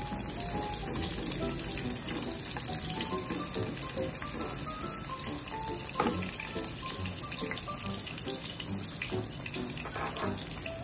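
Garlic and red onion sizzling in hot oil in a nonstick pan as they are stirred with a spatula, with a couple of sharp taps of the spatula, the loudest about six seconds in. Light background music plays over it.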